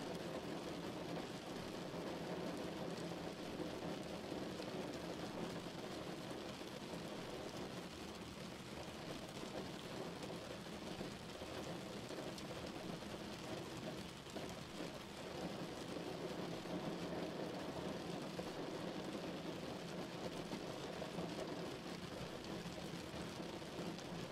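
Steady rain falling, an even continuous hiss with no thunder.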